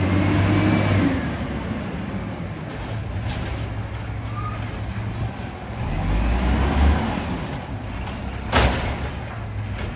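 Volvo WX64 garbage truck with an Amrep Octo automated side loader, its diesel engine running with a steady low rumble that swells for a moment about six to seven seconds in. A short sharp burst of air hiss comes about eight and a half seconds in.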